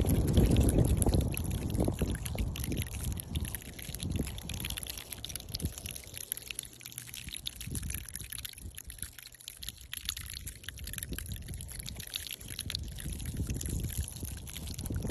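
Cactus spines brushed and tapped against one another, making a dense fine crackle that sounds like light rain or falling water. The sound is fuller for the first few seconds, then softer.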